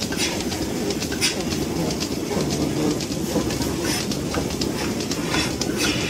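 Milking machinery running in a milking parlour: a steady drone with scattered clicking and short hisses of air as a milking cluster's teat cups are handled and put on a cow's udder.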